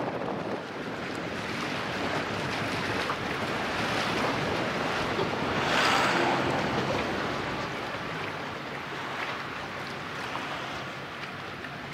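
Sea waves washing against the shore, a steady rush that swells to its loudest about six seconds in and then eases off.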